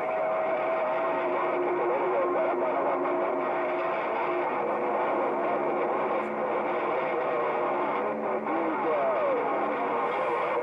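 President HR2510 transceiver's speaker receiving a crowded channel in skip: several distorted, unintelligible voices on top of one another, with steady whistling tones and static.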